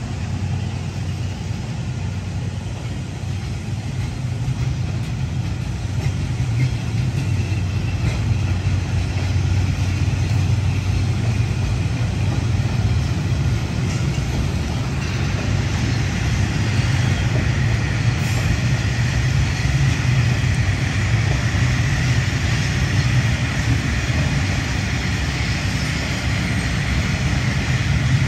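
D19E diesel-electric locomotive running with a steady low engine drone, getting somewhat louder about a quarter of the way in. A higher hiss builds up over the second half.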